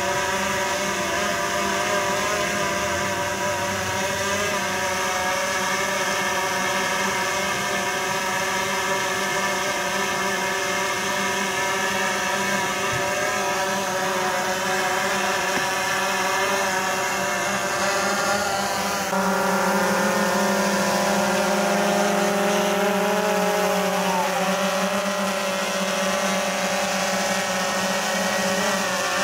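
DJI Phantom 3 Professional quadcopter hovering, its four electric motors and propellers giving a steady, many-pitched whine. About two-thirds of the way through the pitch slides and settles at a new level and the whine gets a little louder as the motor speeds change.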